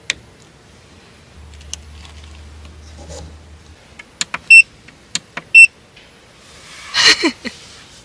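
Two loud, high-pitched electronic beeps about a second apart, after a few light clicks and a low hum. A short noisy sound with a falling tone follows near the end.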